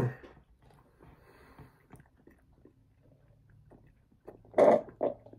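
A person drinking a thick strawberry milkshake from a cup. After a quiet stretch, two loud drinking sounds come close together near the end.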